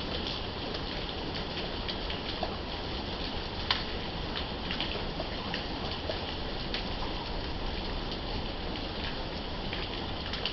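Steady rain falling, with many individual drops ticking sharply on hard surfaces and one louder drop tap a few seconds in.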